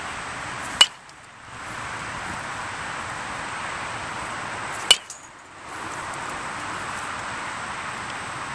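A metal baseball bat hitting pitched balls twice, about four seconds apart, each contact a sharp, ringing ping.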